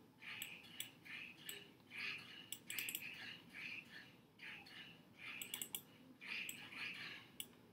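Faint, short chirps, like small birds in the background, repeating irregularly about twice a second, with a few sharp clicks of a computer mouse or trackpad.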